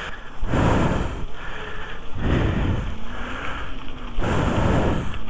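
Wind buffeting the microphone of a handlebar-mounted action camera on a moving e-bike, surging in gusts about once a second, with a faint wavering hum underneath.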